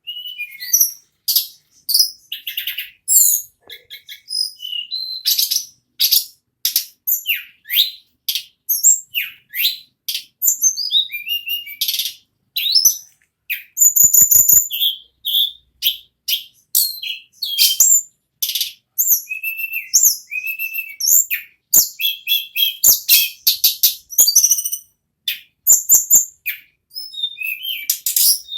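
A sulingan (tledekan gunung, the Sunda robin) singing nonstop: a fast, unbroken stream of high, sharp chirps and whistled notes. About halfway through there is a brief run of rapid clicks.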